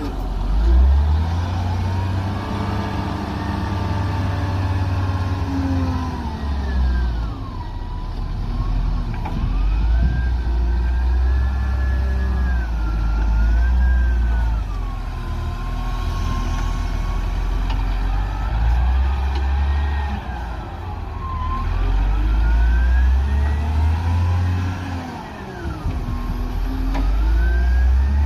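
Caterpillar wheel loader's diesel engine running hard and revving up and down as it digs into sand and raises its loaded bucket. A high whine rises and falls with the revs over the heavy low engine rumble.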